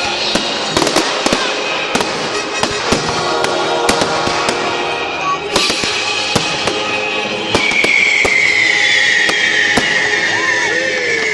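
Fireworks bursting in a display: many sharp bangs and crackles, with music playing underneath. About two-thirds of the way in, a long high whistle starts and slowly falls in pitch.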